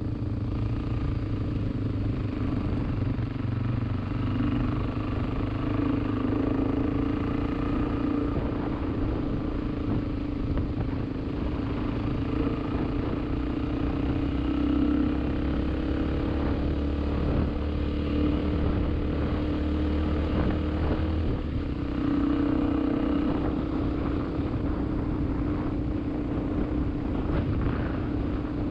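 A road vehicle's engine running steadily while driving, its pitch shifting slightly with speed, over a continuous low rumble of road and wind noise.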